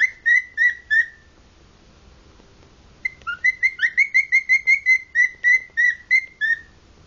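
Cockatiel whistling loudly in short, repeated high notes, some sweeping upward. A brief run of notes comes first, then a gap of about two seconds, then a longer, faster series of about four notes a second that stops shortly before the end.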